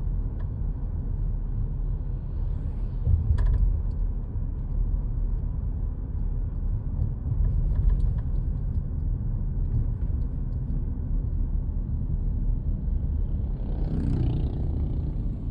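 Car driving on a road: a steady low rumble of engine and tyre noise, with a short knock about three seconds in and a brief swell of noise near the end.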